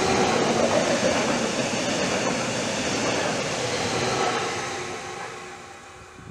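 Stadler FLIRT electric multiple unit (MÁV class 415) running past close by: a loud, even rush of wheels on rail and moving air, fading away over the last two seconds as the train leaves.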